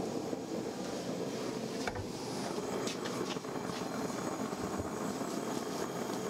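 A steady mechanical drone in the room, unchanging throughout, with a couple of faint clicks about two and three seconds in.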